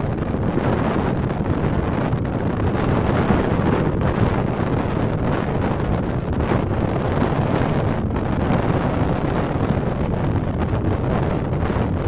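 Strong wind buffeting the microphone: a steady, rumbling rush of noise.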